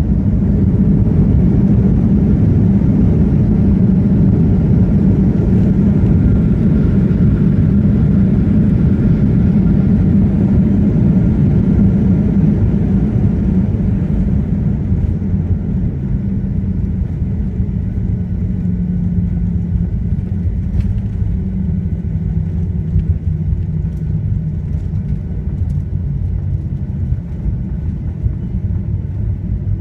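Cabin noise of a Boeing 737-700 on its landing rollout: a loud, steady low rumble from the jet engines and the wheels rolling on the runway. It eases off gradually over the second half as the airliner slows toward taxi speed.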